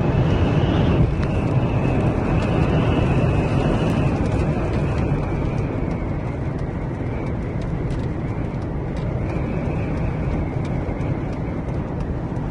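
Strong sandstorm wind blowing steadily and rumbling on the microphone, with a faint high whistle in the first half that fades out.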